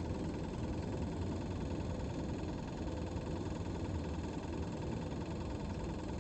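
Steady hum of a boat motor running while the fishing boat holds on a spot.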